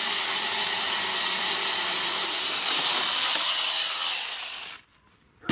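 Makita angle grinder fitted with a chain saw attachment, its chain cutting through a log with a steady high-pitched whine and hiss. It grows a little louder about three seconds in and cuts off suddenly near the end.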